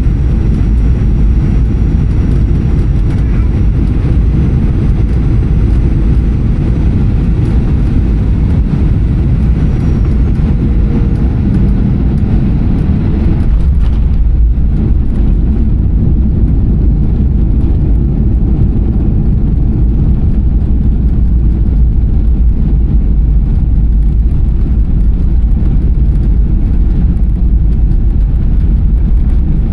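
Loud, steady rumble of a Boeing 737-800 heard from inside the cabin, from its engines and the airflow and roll. About 14 seconds in, the higher hiss drops away abruptly while the deep rumble carries on.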